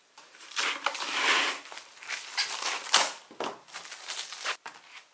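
Clear plastic food bag crinkling and crackling as a hand handles and presses it, in irregular bursts with sharp crackles.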